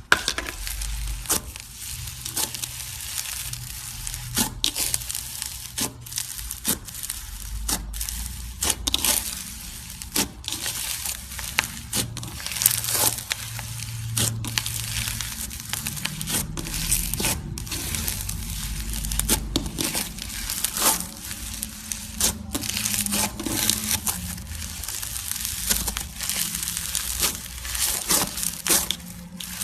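Slime being squeezed and worked by hand, with irregular sharp pops and crackles as air pockets in it burst.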